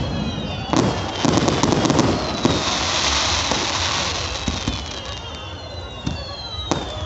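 Aerial firework shells going off: sharp bangs and a burst of crackling in the first couple of seconds, then a fizzing hiss, with high thin whistles falling in pitch and a few more scattered bangs later on.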